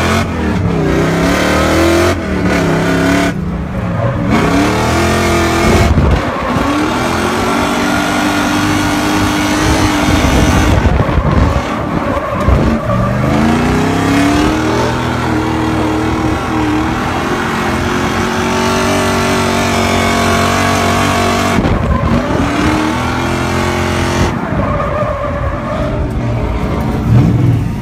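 Drift car's engine, heard from inside the cabin, revving up and falling back again and again through a run of slides, with tyres squealing beneath it.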